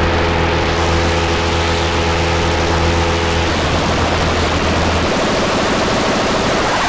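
Electronic synth drone from the A-Resonator JSFX synth plugin run through the C'thulhu Wreq and Dagon Phaserus effects: steady low held tones over a harsh, dense noisy wash. The upper tones drop out about halfway through and the low hum a little later, leaving only the noise.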